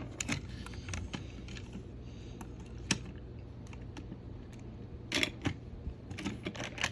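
Scattered small plastic clicks and taps from a toy train engine and its cargo cars being handled, a single sharper click about three seconds in and a quick cluster of clicks from about five seconds on.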